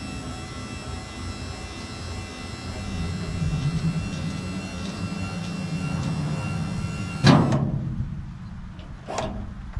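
Electric motor of a Carolina automatic tarp system running steadily with a thin whine as it swings the tandem dump truck's tarp arm down over the bed. It stops with a loud clunk about seven seconds in as the arm comes down, followed by a lighter click near the end.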